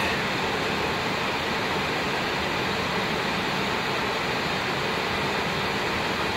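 Steady flight-deck noise inside an Airbus A319 holding on the runway before take-off: an even rush of air with a low hum from the idling engines and cabin air systems.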